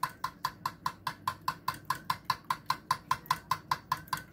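A fork beating eggs in a ceramic bowl: quick, even clinks of metal on ceramic, about five or six a second.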